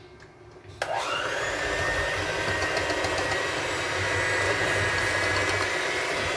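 Electric hand mixer switched on about a second in, its motor whining up to speed and then running steadily as it beats cake batter.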